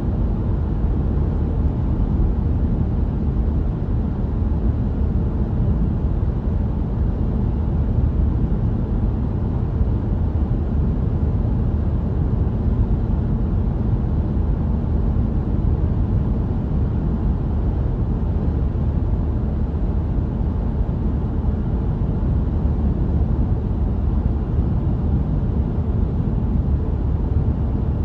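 Overlaid stock sound effect of a car driving: steady engine and road noise, heaviest in the low end and unchanging in level.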